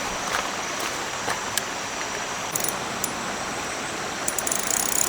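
River water rushing steadily, with a few light clicks and a short spell of rapid high ticking near the end.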